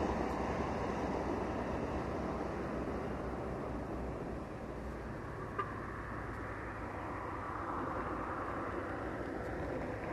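Steady outdoor ambient noise: an even rushing hiss with a low rumble underneath.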